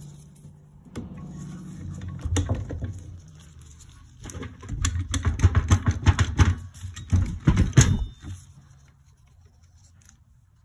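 Bursts of metallic knocking and rattling as the YZ250F engine's parts are worked loose by hand. There is a shorter run about 1 to 3 seconds in and a longer, louder run from about 4.5 to 8 seconds in.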